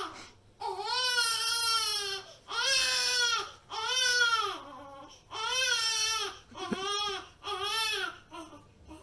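A baby crying in a run of long wails of about a second each, every wail rising then falling in pitch, the last few shorter.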